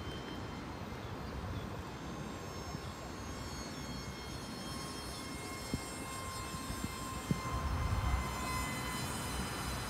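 The small gas-turbine engine of a radio-controlled jet fighter whining as several high, steady tones, some slowly rising in pitch partway through. Under it is a low rumble of wind on the microphone that swells near the end.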